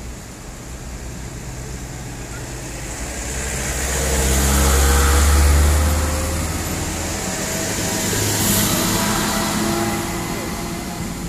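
Heavy diesel trucks passing close by one after another, each engine's deep drone building to a peak and fading. The first and loudest passes about five seconds in, and a second follows near the end.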